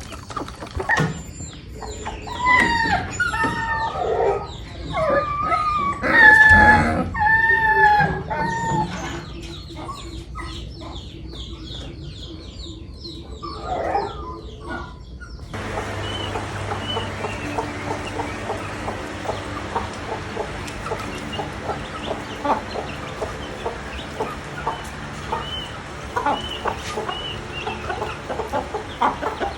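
Chickens: a rooster crowing loudly with hens clucking during the first several seconds. After an abrupt change about halfway through, there is a steadier background of short clucks and high little peeps over a low hum.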